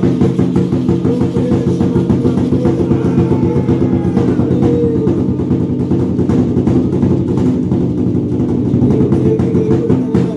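Ceremonial music with a fast, even drumbeat of about four beats a second over sustained low tones, accompanying a Maya ritual dance.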